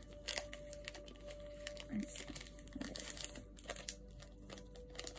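Packaging crinkling and rustling as it is handled and unwrapped by hand, a run of quick crackles.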